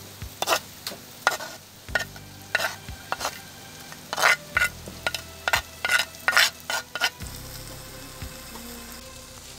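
A spoon scraping against an earthenware bowl and clay pot in a series of quick clatters as kekatiya flowers are pushed into the curry, over the steady sizzle of onions, spices and dried fish frying in coconut oil. The scraping stops about seven seconds in, leaving the sizzle.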